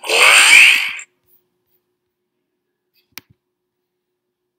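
A cartoon whoosh sound effect, a noisy swish with rising sweeps, lasting about a second. About three seconds in comes a single mouse click.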